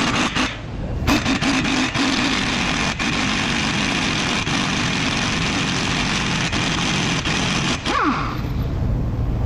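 Impact wrench hammering on a tie rod end nut to undo it: a short burst at the start, then a long continuous run of rapid hammering that ends near the end with a brief sliding tone.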